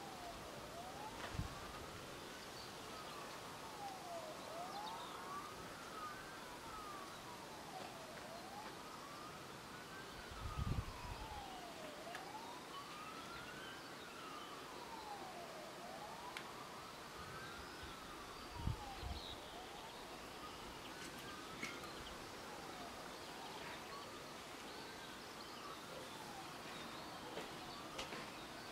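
Faint wailing siren, its pitch rising and falling slowly and evenly, one full cycle about every three and a half seconds. Two brief low thumps stand out, one about eleven seconds in and one near nineteen seconds.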